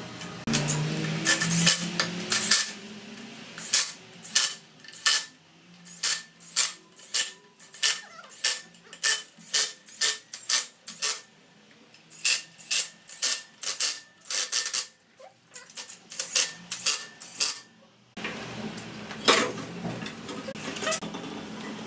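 A long series of sharp metallic clinks, roughly two a second with short pauses: bolts and tools knocking against the aluminium gearbox case as it is taken apart.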